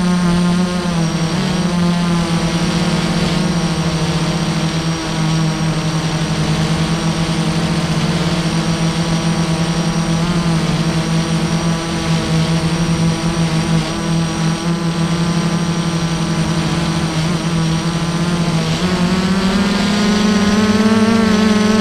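FPV quadcopter's brushless motors and propellers whining steadily in flight, heard from the camera on the quad itself. The pitch wavers slightly with throttle and rises about 19 seconds in.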